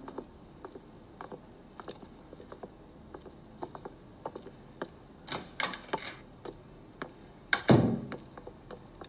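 Scattered small clicks and knocks, a few short scraping sounds a little past the middle, then one loud, heavy thump near the end.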